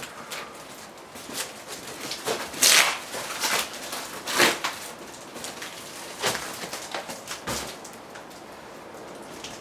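Irregular knocks, clicks and scraping from parts being handled, with two louder scraping rustles about three seconds and four and a half seconds in.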